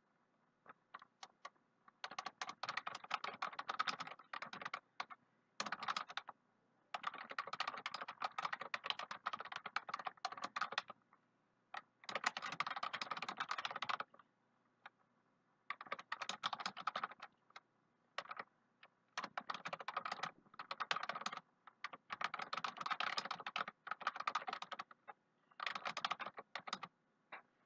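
Typing on a computer keyboard: quick runs of key clicks lasting from one to a few seconds, broken by short pauses.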